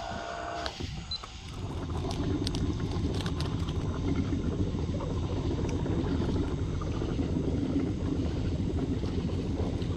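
Small fishing boat's motor running steadily while underway, a low rumble that builds up about a second and a half in.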